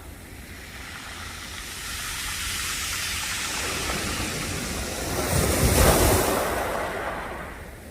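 Sea surf breaking on the shore: a steady wash of waves that swells to a loud break about three-quarters of the way through, then fades as the water draws back.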